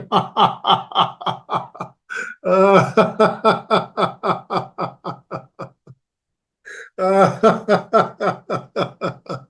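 Hearty laughter in rapid, rhythmic 'ha-ha-ha' pulses, about four or five a second. It comes in three long runs with short pauses between them, each run tailing off as the breath runs out. This is laughter yoga's 'laugh it out' exercise: a deep breath held, then let out as laughter.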